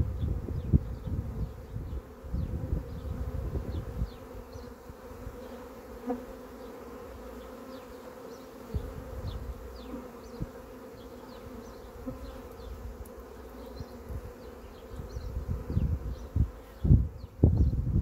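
A honeybee swarm buzzing steadily, a droning hum, as the bees crowd the entrance of a cardboard swarm box and walk in. Low rumbling gusts come and go, strongest at the start and again near the end.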